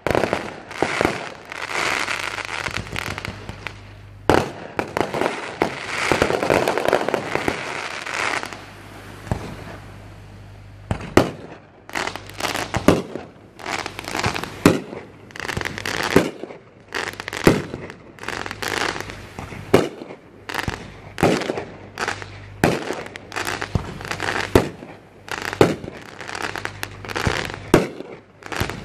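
Fireworks display. For the first several seconds there is a dense crackle of glittering shells, then a steady run of sharp bangs from shells bursting overhead, about one or two a second.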